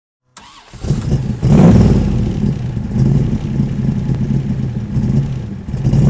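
Motor vehicle engine revving up, loudest about a second and a half in, then running on with a low, pulsing rumble.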